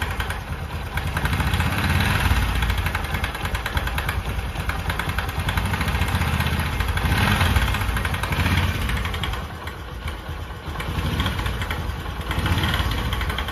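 Bajaj Discover 125's single-cylinder four-stroke engine idling with an abnormal mechanical noise in its running, a fast fine ticking heard through the engine note. It is easily taken for timing chain, crank main bearing or camshaft noise, but the mechanic traces it to the magneto flywheel (the 'magnet').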